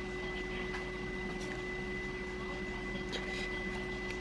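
Steady background hum and hiss with a thin high whine, and a couple of faint clicks about three seconds in.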